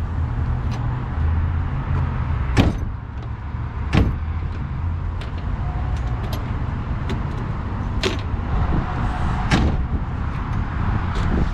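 Car sounds: a steady low rumble with four sharp knocks, about two and a half, four, eight and nine and a half seconds in.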